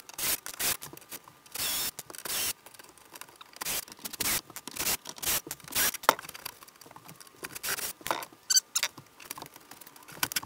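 A cordless drill runs in short bursts, backing out screws, among a busy string of clicks, knocks and scrapes as an old built-in ice chest is worked loose from a camper wall. There is a brief squeak about eight and a half seconds in.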